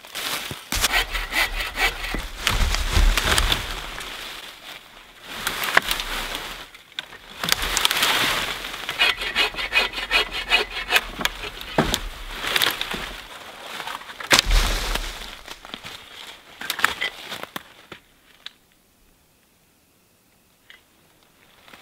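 Hand saw cutting through a fallen log on the forest floor, with fast back-and-forth rasping strokes in several runs and short pauses between them. The sawing stops a few seconds before the end.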